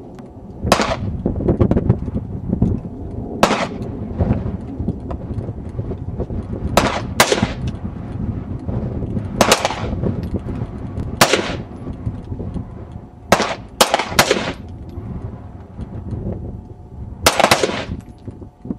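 Pistol fire: about eleven single shots at an irregular pace, some in quick pairs and one quick run of three, each with a short ringing tail.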